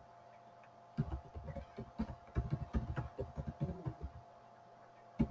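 Computer keyboard typing: a quick, irregular run of keystrokes lasting about three seconds, then a single sharper click near the end, over a faint steady hum.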